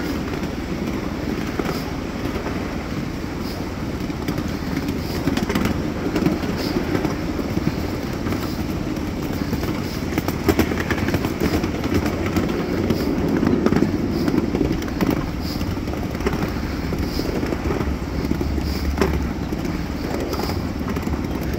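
7.5-inch-gauge miniature train riding along its track: a steady rumble and clatter of the cars on the rails, with light regular clicks about once a second.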